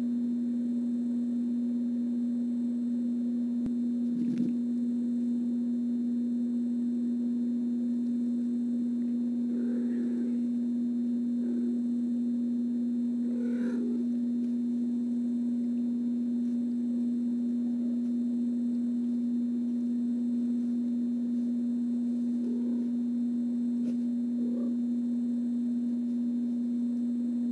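Steady electrical hum, one unbroken low tone. A few faint brief sounds come about ten and fourteen seconds in.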